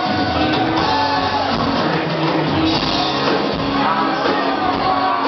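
Live acoustic rock song: a man singing into a microphone over a strummed acoustic guitar, with band accompaniment.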